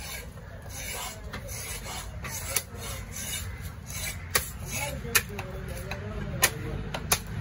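Heavy fish-cutting knife chopping through a big trevally's head on a wooden block: about five sharp chops at uneven intervals, with rasping cuts through flesh and bone between them.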